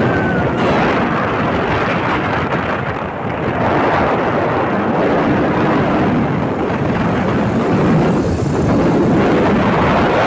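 Steady rushing noise of riding pillion on a moving motorcycle: wind buffeting the microphone over the bike running along the road.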